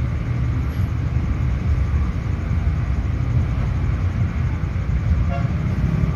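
Steady low rumble with a fluttering texture and no distinct knocks or tones.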